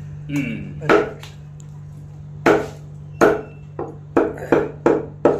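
Butcher's cleaver chopping chicken on a round wooden chopping block: sharp, irregular chops, about eight of them, coming faster near the end. A steady low hum runs underneath.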